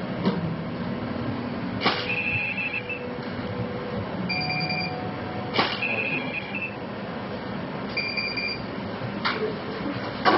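A few sharp clicks and several short, high electronic beeps over a steady background din.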